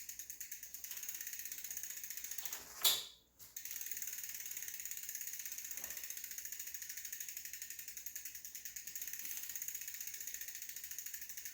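Jamis Ranger mountain bike's rear wheel spinning freely, its ratcheting rear hub pawls ticking fast and steadily as the wheel coasts. There is a single knock about three seconds in and a brief pause, then the ticking resumes. The wheel is being spun to check that the new tire and inner tube are seated.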